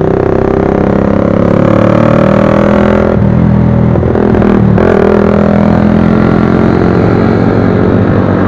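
Motorcycle engine running under way. Its note rises steadily for about three seconds, drops twice, about three and about five seconds in, then holds steady.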